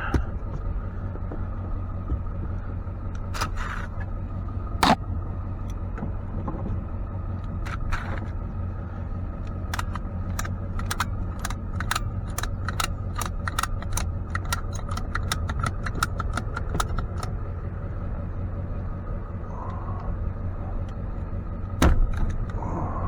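Truck engine idling steadily, with scattered sharp metallic clicks and clanks over it. For several seconds in the middle the clicks come quickly and evenly, about three a second.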